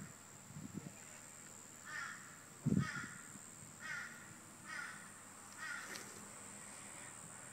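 A crow cawing, five harsh caws about a second apart, with a dull thump about three seconds in.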